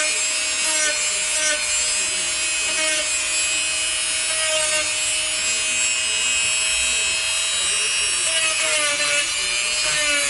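Handheld corded rotary tool running steadily while routing out the openings for a fill port and a pressure gauge in a cover. Its motor whine sags in pitch now and then as the bit bites into the material, over a steady hiss of grinding.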